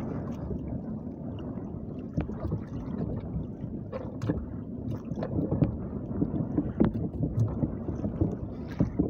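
Wind buffeting the microphone and choppy sea water lapping against a small outrigger canoe's hull, a steady rumbling hiss with a few light knocks scattered through it.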